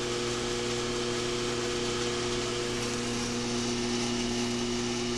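A/C recovery and recharge station running steadily while it charges an automotive R134a system with refrigerant: an even mechanical hum with a low drone that holds level throughout.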